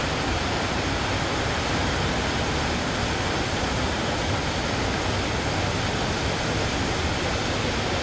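Heavy sea surf breaking, a steady, unbroken rush of wave noise.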